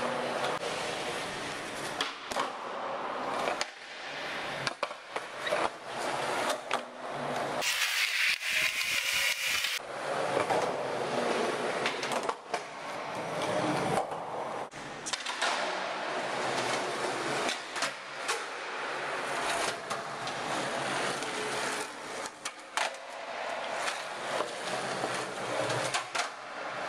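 Skateboard wheels rolling over a concrete car-park floor, broken by repeated clacks and knocks of the board from tricks and landings. About eight seconds in there is a harsh hiss lasting about two seconds.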